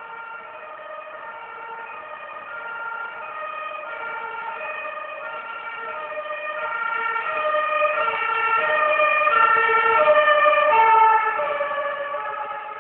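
Two-tone emergency-vehicle siren (German Martinshorn) alternating between a high and a low note, growing louder as the vehicle approaches, peaking about ten seconds in, then fading as it passes.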